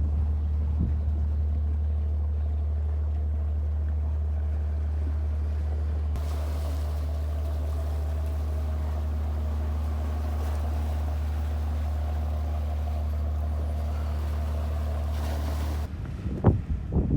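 Motorboat engine running at a steady pitch, with the hiss of rushing water and wind joining about six seconds in. Near the end the engine sound cuts off and gusty wind buffets the microphone.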